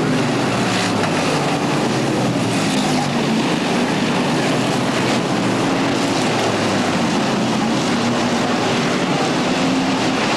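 A pack of stock cars racing around a short oval track, their engines running together in a steady drone with pitch rising and falling as they pass.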